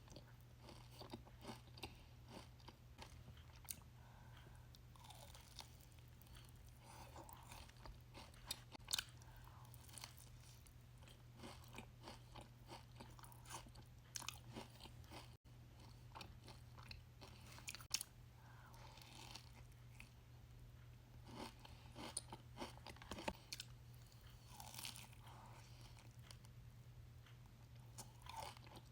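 Close-miked chewing of a Dubai-style chewy cookie, with irregular crisp crunches and crackles as it is bitten and chewed, a few louder crunches standing out. A faint steady low hum runs underneath.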